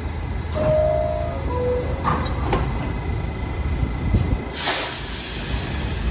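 R68 subway car's two-note falling door chime, then its doors sliding shut with a couple of knocks about two seconds in, and a short burst of hissing air near the end, over the low rumble of the standing train.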